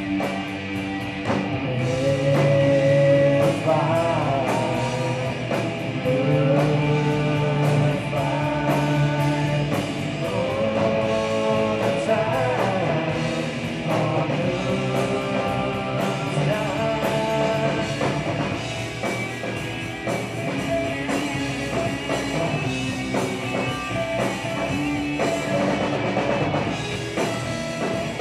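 Live rock band playing: two electric guitars, bass guitar and drum kit, loud and steady throughout.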